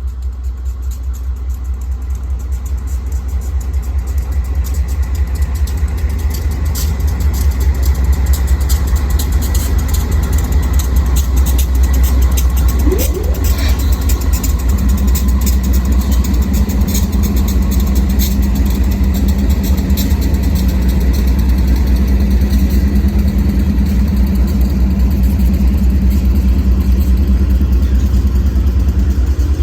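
Diesel freight locomotive engine running with a deep, steady rumble that grows louder over the first several seconds and then holds. A steady hum joins about halfway through.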